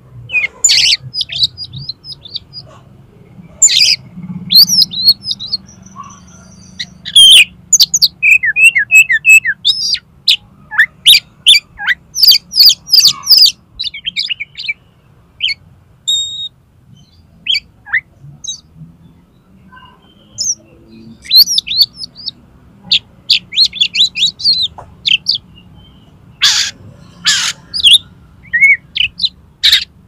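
Oriental magpie-robin (kacer) singing in the fast, erratic 'konslet' style: a varied run of sharp whistled notes, quick chattering trills and harsh rasping notes, in bursts broken by short pauses.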